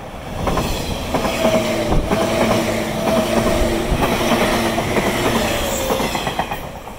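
JR East 485 series electric train passing close by: the rumble and clatter of its wheels on the rails, with a hum of several steady tones in the middle of the pass that dips slightly in pitch near the end. The sound comes up sharply about half a second in and falls away near the end as the last car goes by.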